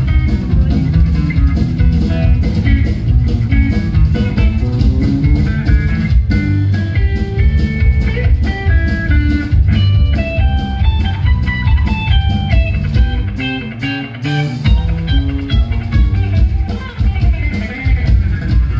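Fender Telecaster electric guitar played live in chicken-pickin style: fast runs of short, snappy single notes over a drum kit. The drums and low end drop out briefly about fourteen seconds in, then come back.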